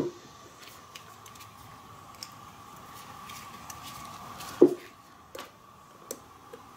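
Handling knocks and clicks as an EGR valve is turned over on a wooden bench and a hex key is fitted into its housing screws: a sharp knock at the start and another about four and a half seconds in, with faint ticks between, over a faint steady high hum.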